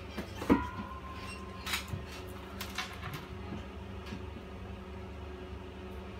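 Ceramic dishes being moved and set down on a kitchen counter: one knock about half a second in with a short ringing after it, then a few lighter clicks and taps.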